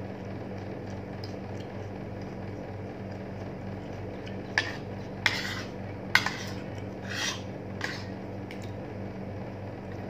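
Spoon and fork clinking and scraping against a plate several times near the middle, over a steady low hum.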